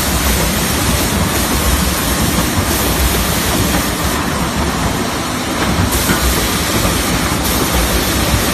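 Three-head calibrating sanding machine for plywood running: a loud, steady mechanical noise with a low rumble underneath.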